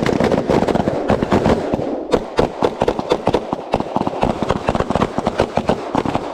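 Rapid gunfire from several shooters firing at once on a rifle-to-pistol transition drill. The shots overlap in a dense crackle for about the first two seconds, then come as more spaced, separate shots.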